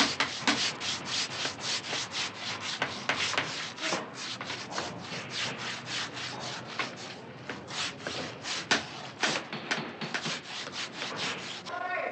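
Rapid hand-sanding strokes on prosthetic leg sockets, a brisk scratchy rubbing of about four strokes a second that keeps up without a break.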